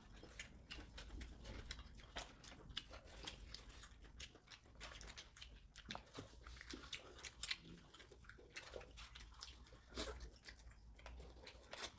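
Faint eating sounds of several people chewing and biting fried chicken and tteokbokki, with many small irregular clicks and mouth smacks.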